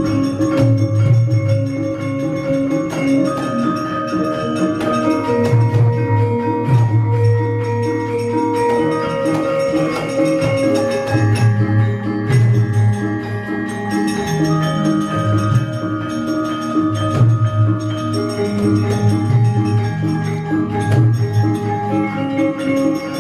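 Javanese gamelan ensemble playing: bronze kettle gongs and metallophones ring out a steady, rhythmic melody over hand drums.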